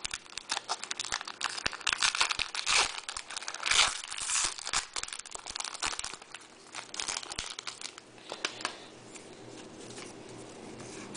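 Foil trading-card pack wrapper being torn open and crinkled by hand: a dense run of crackles and rips that dies down about eight seconds in.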